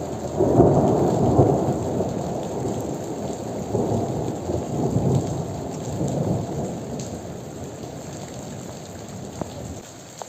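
Rolling thunder over heavy rain: the rumble swells about half a second in, surges again a few times, and fades toward the end.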